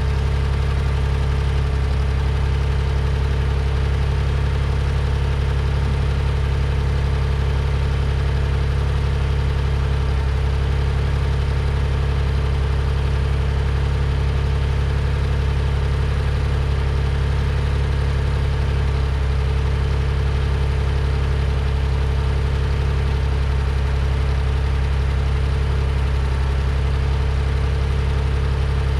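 1974 Ford 3550 industrial tractor engine idling steadily, with no change in speed.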